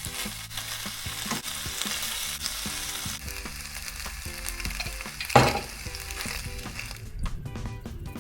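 Food sizzling as it fries in a pan and is stirred, with one sharp knock about five seconds in. The sizzle thins out near the end.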